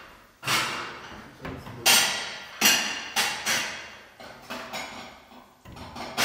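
Porcelain dinner plates clattering and knocking against each other and a cupboard as they are taken out, about eight sharp knocks with short ringing, the loudest about two seconds in.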